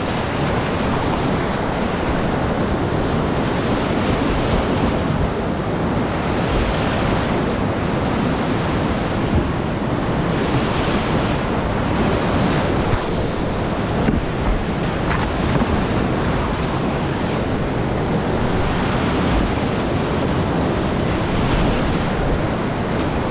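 Creek whitewater rapids rushing close up as a kayak runs through them: a loud, steady churning of water with no let-up.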